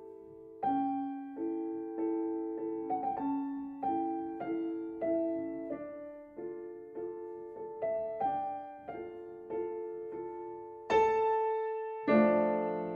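Slow, gentle piano music: single notes struck one after another and fading, with louder, fuller chords near the end.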